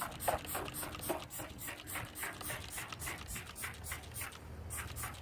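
Hand trigger spray bottle squirting cleaner in repeated short squirts, about two a second. Behind it runs an even, fast high-pitched ticking of about four to five pulses a second.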